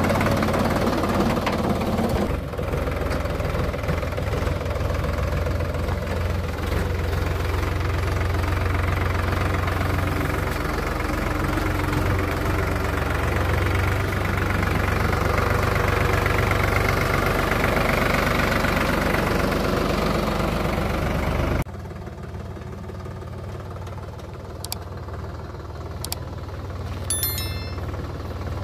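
Sonalika DI-47 RX Sikander tractor's diesel engine running steadily as the tractor drives along, loud and close at first. About 21 seconds in it drops sharply to a fainter running sound that grows louder near the end as the tractor comes nearer.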